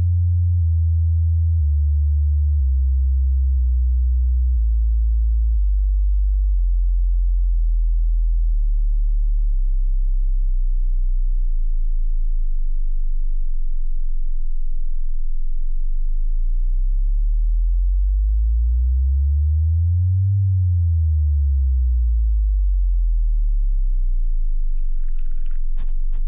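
Loud, deep electronic tones that slide slowly in pitch. One tone glides down over the first several seconds and holds very low. About two-thirds of the way in, a second tone rises and falls back across it, pulsing where the two meet. A short, noisier, higher sound starts just before the end.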